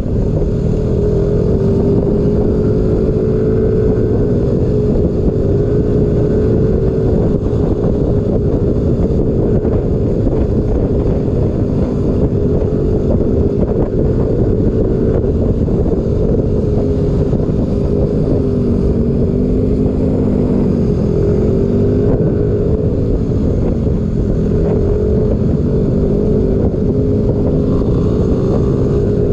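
A motor vehicle's engine running steadily under a dense, loud rumble, its pitch drifting gently up and down as the engine speed varies a little.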